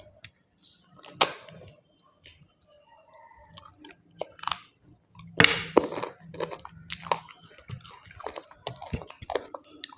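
Close-miked chewing and eating: irregular wet mouth smacks and clicks, with the sharpest ones about a second in and again around five and a half seconds in.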